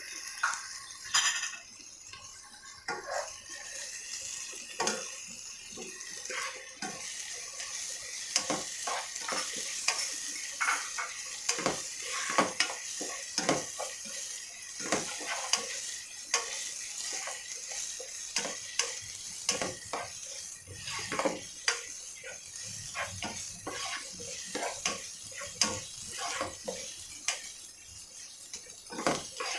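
Chopped onions, tomatoes and green chilies sizzling as they sauté in a nonstick kadai, with a steady hiss. A plastic spoon stirs them, scraping and tapping against the pan many times at an uneven pace.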